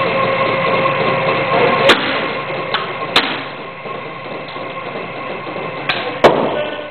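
Sharp cracks from a DG 800 glider wing and its loading rig as the wing is bent under a static stress test. There are four or five cracks, the loudest near the end, over a steady mechanical hum that fades about halfway through.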